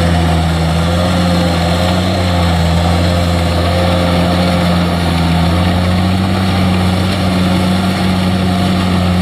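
Kubota DC-70 combine harvester's diesel engine running steadily under heavy load as the machine works through deep paddy mud.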